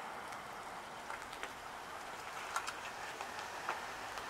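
Steady background hiss with several faint, scattered ticks.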